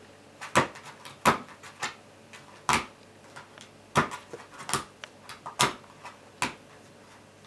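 A cat rummaging head-first in a plastic bucket, rustling and crinkling the paper inside: about a dozen irregular sharp rustles and knocks, which stop about a second before the end.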